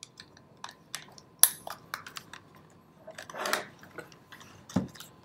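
Small plastic clicks and knocks from a Polycom VVX 101 desk phone's housing and cords as they are handled, with cables being pushed through the channels in its base. There is a sharp click about one and a half seconds in, a short rubbing sound a little after three seconds, and a knock near the end.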